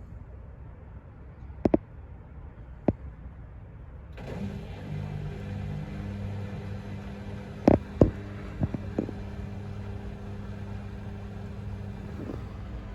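Samsung washer dryer starting up: a few clicks, then about four seconds in a steady electric hum of a pump or motor starts and keeps running, with a cluster of sharp clicks partway through.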